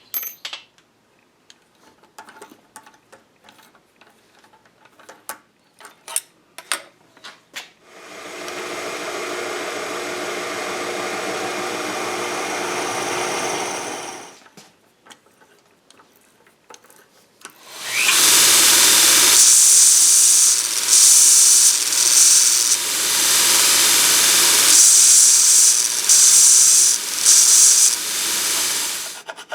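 Small metal clicks and knocks of tools being handled, then a power tool runs steadily for about six seconds. After a short pause a louder, harsher power-tool run with a strong high hiss goes on for about eleven seconds, rising and falling in level.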